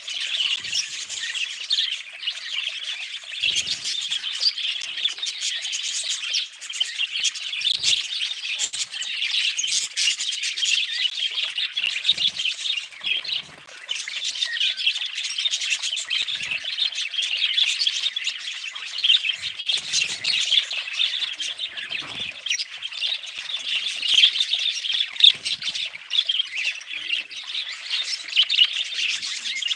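Budgerigars chirping and chattering without a break, with a few faint low knocks.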